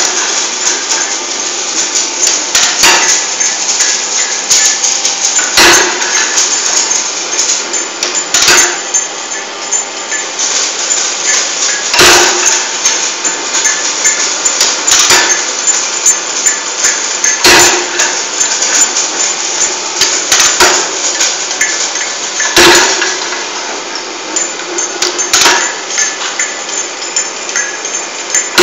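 Envelope cutting machine running with a steady mechanical clatter of small clicks and a heavy knock about every two and a half to three seconds as it strokes.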